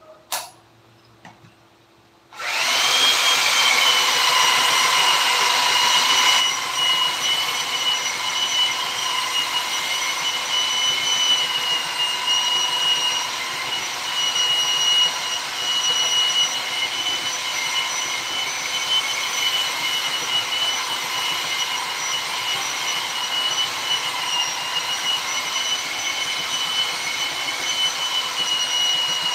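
A sharp click near the start, then about two seconds in a power tool switches on and runs steadily with a high whine.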